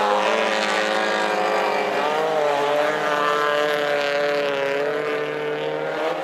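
Several race car engines running hard together as a pack of old saloon cars races past on a gravel track, their pitches wavering slightly and overlapping.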